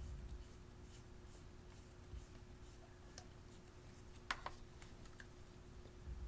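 Faint, sparse clicks and pops of slime being pressed and mixed by hand, the sharpest about four seconds in, over a low steady hum.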